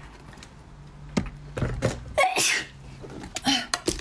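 A frozen pink wrap being twisted and wrung to free small frozen ice balls: crackling and a couple of short squeaks, with sharp clicks as balls drop onto a plate.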